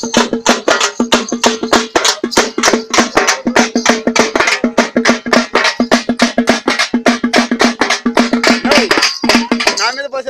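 Festival drums beaten fast with sticks, several sharp strokes a second over a steady ringing tone.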